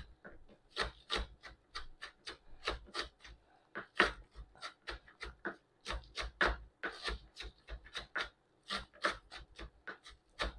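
Chef's knife chopping onion on a plastic cutting board: uneven taps of the blade on the board, about three a second.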